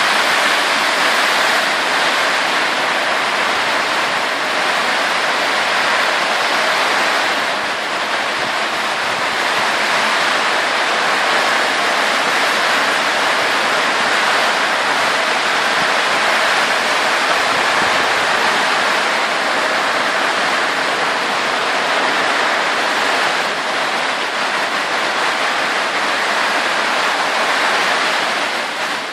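Rain falling steadily, a dense, even hiss that does not let up.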